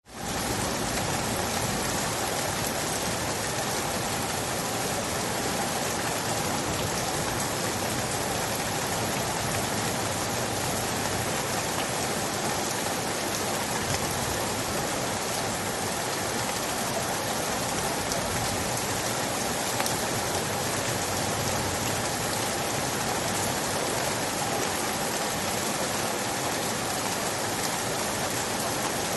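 Steady rain falling, an even dense hiss with faint drop ticks, fading in at the very start.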